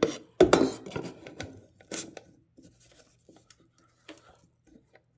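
Removable bowl and paddle of a Cuisinart ICE-100 compressor ice cream maker being fitted into the machine's well. There is a loud metal clatter about half a second in, another knock near two seconds, then lighter clicks and scrapes.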